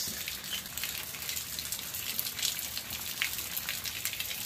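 A stream of running water pouring and splashing steadily, with many small crackling spatters, as raw beef shank is rinsed under it.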